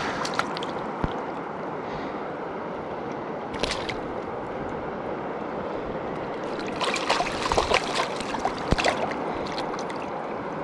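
Steady rush of river water flowing over rocks, with a few short splashes and clicks around the middle and a cluster of them about seven to nine seconds in.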